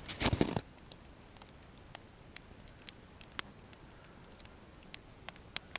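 A short rustle at the start, then scattered sharp crackles and pops from a nodya long-log campfire burning hot, about eight in all, spaced irregularly.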